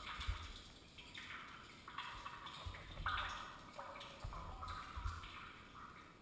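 Faint water dripping inside a shallow well shaft, irregular drips roughly a second apart, with a few soft low thuds.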